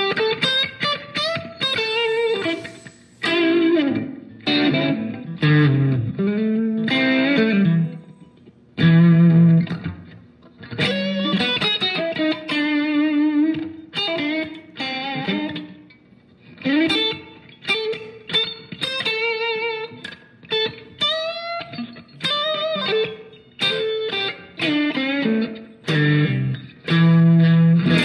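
Electric guitar played through a Sonicake Matribox II Pro multi-effects processor: single-note lead phrases with string bends and vibrato, broken by short pauses.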